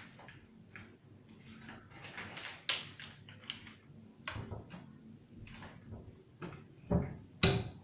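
Homemade slime of shampoo, toothpaste and salt being handled and kneaded, making irregular sticky smacks and clicks, the two loudest near the end.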